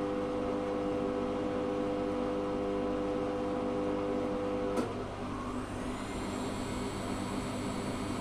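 Zanussi FA623 washing machine running: a steady hum cuts off with a click about five seconds in. A high motor whine then rises and levels off as the drum picks up speed.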